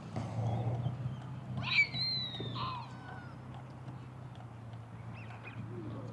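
A waterfowl call, a short honking cry about two seconds in, over a low steady hum.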